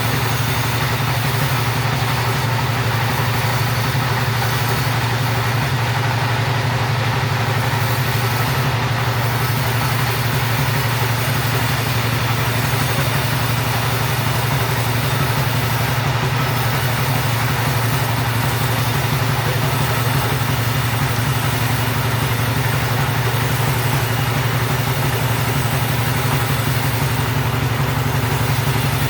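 Two-stroke chainsaw engine running steadily at high speed while sawing through timber, held at an even pitch and level without revving up or down.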